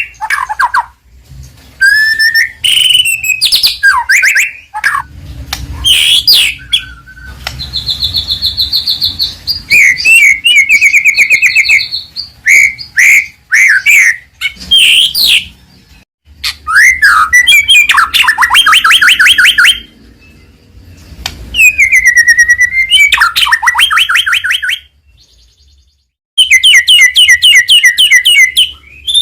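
White-rumped shama (murai batu) singing loudly in varied phrases: clear sweeping whistles and fast rattling trills, broken by short pauses between phrases.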